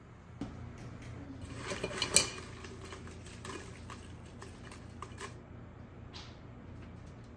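A hand rummaging through folded paper slips in a glass jar: paper crinkling and rustling with light clinks against the glass, the loudest click about two seconds in. It settles after about five seconds.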